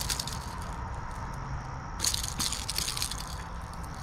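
Bass flopping on the grass with a hard-bodied lure and its treble hooks in its mouth, a crackling, rattling rustle of grass and hooks. One burst comes about halfway through, over a steady low rumble.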